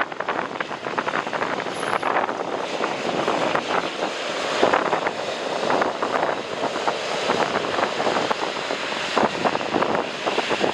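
Strong gusting wind buffeting the microphone, in rapid irregular thumps, with the steady noise of a jet airliner mixed in.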